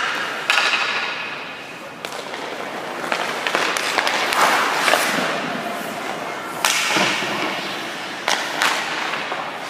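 Ice hockey shooting drill: a few sharp cracks of a stick striking a puck and the puck hitting a goalie's pads, among stretches of skate blades scraping and hissing across the ice.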